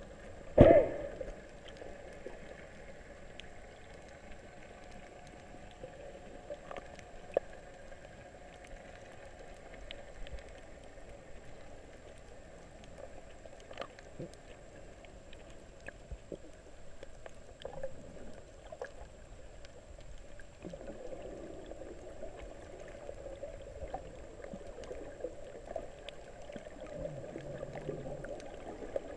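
Underwater ambience heard from a submerged camera: a steady muffled wash of water with scattered small clicks. There is one loud knock just under a second in, and the wash grows a little louder about two-thirds of the way through.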